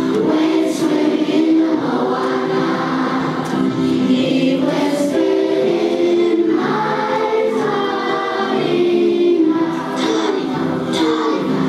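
A hall full of schoolchildren singing a song together.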